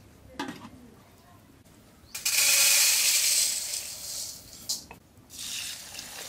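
A loud hiss lasting about three seconds, starting suddenly about two seconds in and then fading, with a short knock before it and a click near its end.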